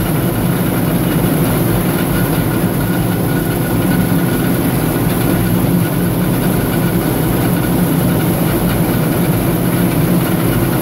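Self-unloading forage wagon and forage blower running steadily, the wagon's beaters and cross conveyor feeding chopped corn silage into the blower.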